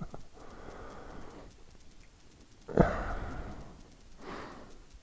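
A person breathing: a long breath early on, a sharper sniff-like breath about three seconds in, and a softer one near the end.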